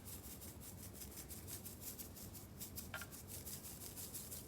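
Faint, fast, even rustling scrape, about eight strokes a second, of sugar being worked in among set homemade cough candies to keep them from sticking. A short light clink comes about three seconds in.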